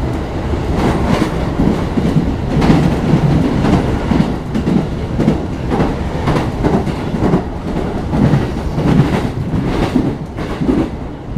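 Commuter electric train running along the line, heard from inside the car: a steady rumble of wheels on rail with a run of clicks and knocks as the wheels pass over rail joints and points.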